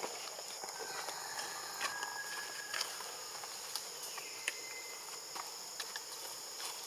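Steady high-pitched insect chorus, crickets or cicadas, with scattered soft clicks and a few short faint chirps.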